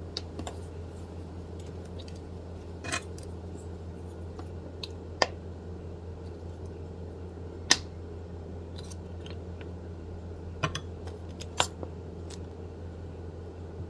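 A steady low hum, with a few scattered light clicks and taps from a plastic squeeze bottle and its flip cap and a wooden spoon over a glass bowl as sauce is squeezed out. The sharpest click comes about halfway through.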